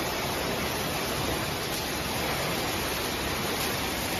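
A steady, even hiss with no rhythm or distinct knocks.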